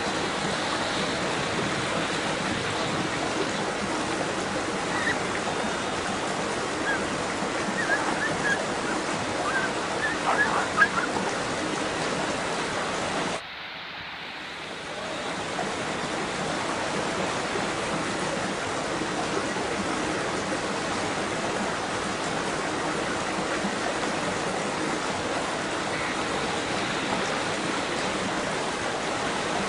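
Steady rushing water, with a few short, sharp sounds between about 7 and 11 seconds in. About halfway through the sound drops away suddenly and swells back over a second or two.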